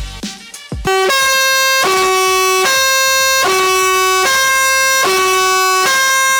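Black TGV dual-tone train-style air horn blasting, starting about a second in and switching back and forth between a lower and a higher note roughly every three-quarters of a second without a break.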